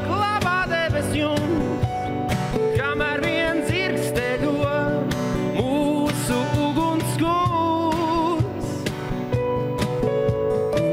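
Acoustic band music: acoustic guitar with sustained notes under a sung vocal line that comes and goes.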